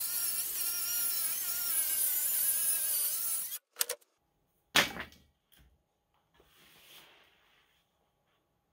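DeWalt cordless circular saw cutting through OSB board, its motor whine wavering under the cut for about three and a half seconds before it stops. A sharp knock follows about a second later, then faint rustling.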